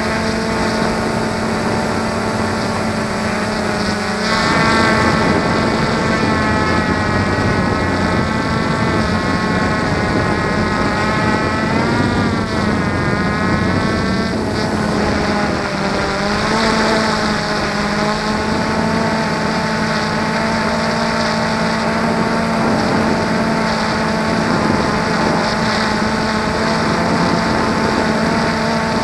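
Small multirotor drone's electric motors and propellers whining, close up from on board. The whine shifts in pitch about four seconds in and wavers up and down around the middle as the drone climbs and turns.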